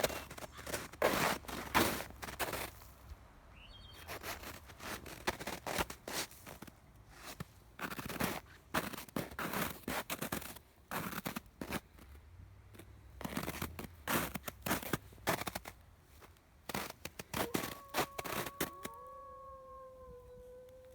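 Footsteps crunching and scraping through snow, in uneven steps with short pauses. Near the end a separate steady pitched tone sounds for about three seconds, dipping slightly in pitch.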